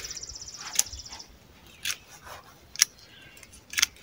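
Hand pruning clippers snipping through oregano stems, four sharp cuts about a second apart. A high insect trill sounds at first and stops about a second in.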